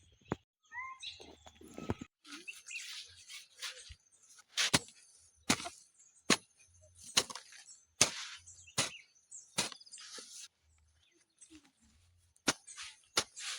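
A hoe chopping into soil again and again, about one stroke every second, each blow followed by a short rustle of earth. There is scraping and rustling before the strokes begin, then a pause near the end before two more strokes.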